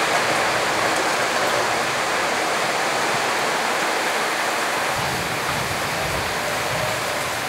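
Drops of gram-flour batter frying in hot oil as boondi: a steady hissing sizzle that starts suddenly and holds evenly.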